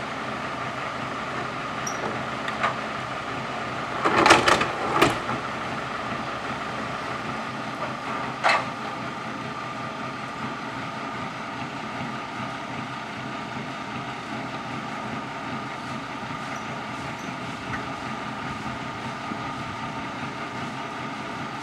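Heavy diesel engine idling steadily, from the truck or the excavator loaded on it, with short bursts of hiss twice about four seconds in and once more about eight seconds in.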